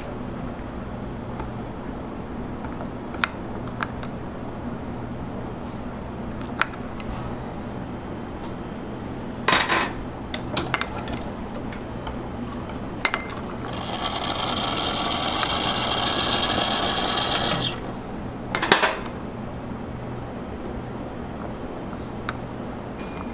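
Metal spoon clinking against a ceramic bowl and a waffle while mango cubes are scooped, a handful of sharp clinks, some in quick clusters, over a steady background hum. Midway a small machine whirs steadily for about four seconds, then stops.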